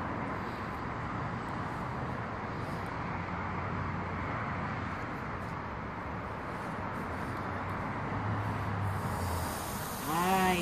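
Steady background hiss with a faint low hum. About nine seconds in, a raw hamburger patty laid on the hot plate of a George Foreman electric grill starts to sizzle.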